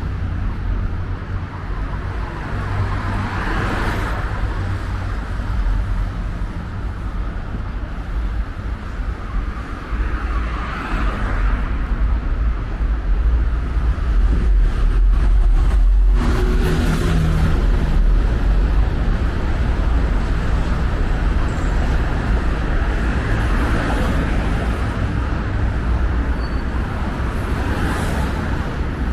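Road traffic noise: a steady low rumble of motor vehicles, with several passing vehicles swelling and fading.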